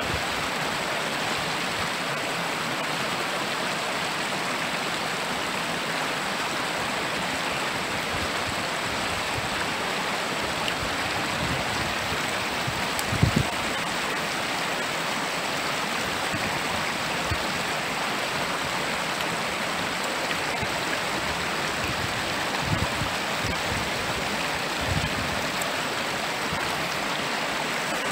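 A stream rushing steadily over rocks. A few dull low thumps cut through it, the loudest about halfway through.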